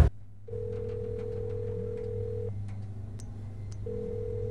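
Telephone ringback tone: a steady beep lasting about two seconds, a pause of just over a second, then the next beep starting near the end, over a low hum.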